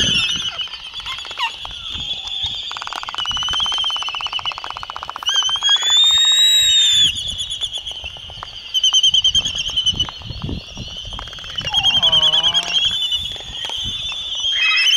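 Laysan albatrosses at a courtship dance, over a constant chorus of wavering high calls from the colony. A rapid bill-clattering rattle runs for a couple of seconds, a loud whistled call rises and falls about five seconds in, and a wavering lower groan comes near the end.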